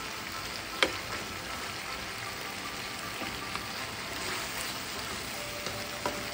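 Beef and vegetable stew simmering and bubbling in a nonstick skillet while a wooden spatula stirs it, with a sharp click of the spatula against the pan about a second in and another near the end.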